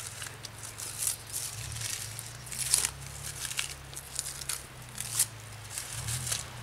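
Birch bark being scraped and peeled off a trunk by hand: a string of irregular, dry crackling and tearing scratches.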